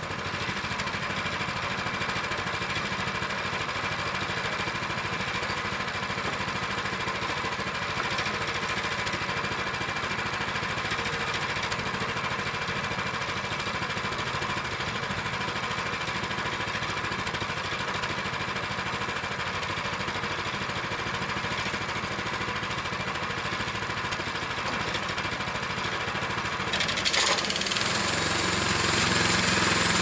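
Gasoline engine of a modified Harbor Freight portable band sawmill running steadily. Near the end it gets louder and harsher as the mill starts into a cut through pine slab wood.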